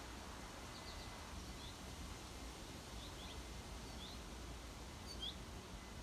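Small songbirds giving short, scattered chirps over a steady low background rumble, with the loudest chirp about five seconds in.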